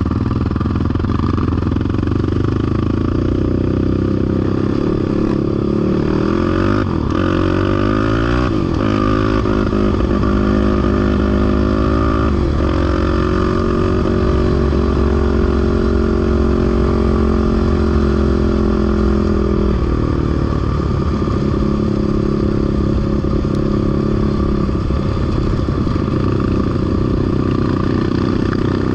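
Off-road vehicle's engine running loudly, its pitch rising and falling with the throttle. It holds a steady note for several seconds around the middle, then drops back about twenty seconds in.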